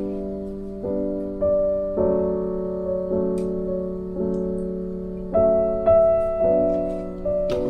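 Background piano music: notes and chords struck one after another in a slow, even sequence, each ringing on and fading before the next.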